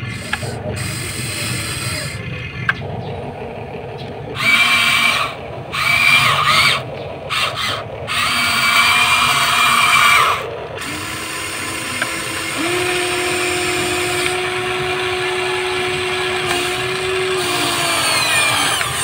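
Remote-control toy excavator's small electric motors whining as it drives on its tracks and works its arm: several short bursts of high whine about four to ten seconds in, then a steadier, lower motor hum with pitch glides as the arm moves.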